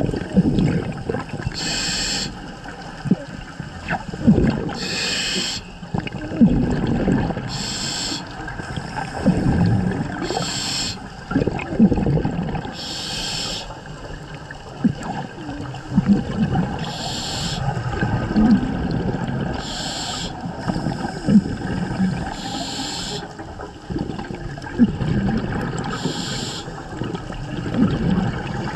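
Scuba diver breathing through a regulator underwater: a short hiss at each inhalation every two to four seconds, with exhaled bubbles gurgling and rumbling between.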